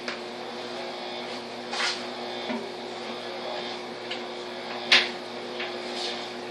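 Steady low electrical appliance hum, with a few scattered knocks and clatters of kitchen handling, the sharpest about five seconds in.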